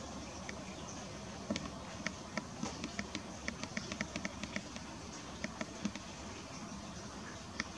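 A run of small, sharp, irregular clicks and taps, most of them bunched in the middle, over a steady low hiss.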